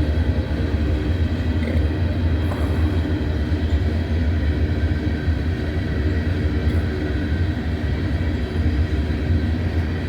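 Cars of a long intermodal freight train rolling past on the rails: a steady, unbroken low rumble.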